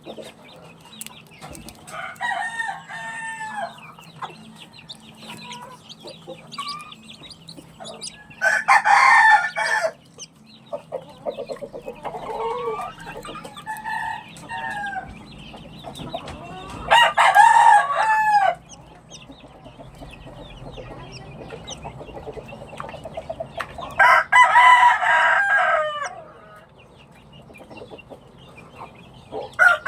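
A rooster crowing three times, each crow loud and lasting a second or two, with hens clucking more quietly in between.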